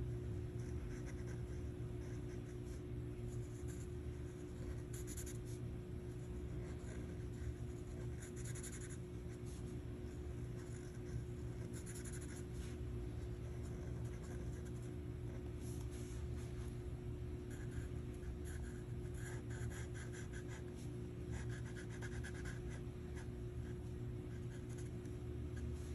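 Sharpie marker tip scratching and rubbing across paper in short, repeated coloring strokes, over a steady low hum.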